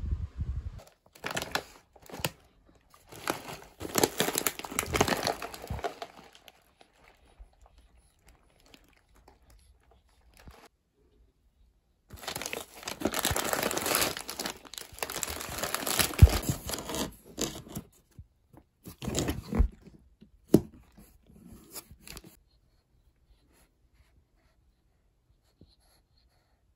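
Plastic bags and packets crinkling and rustling as they are handled, in a few irregular bouts with a couple of sharp knocks in the middle, then quiet toward the end.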